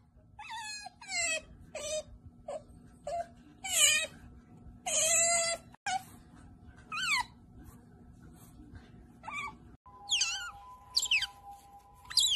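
Otters squeaking: short high-pitched calls that slide down in pitch, about two a second, made while being petted and mouthing a hand. A faint steady hum sits behind the calls from about ten seconds in.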